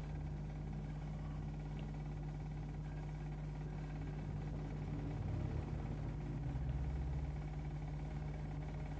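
A steady low electrical hum over a faint hiss, a little louder for a couple of seconds after the middle; no singing is heard over it.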